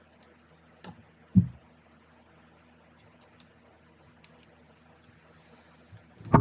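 Clunks and knocks from transfer case parts and tools being handled during reassembly. There is a sharp knock just under a second in, a heavier low thud right after it, a few light ticks, and another loud thud near the end.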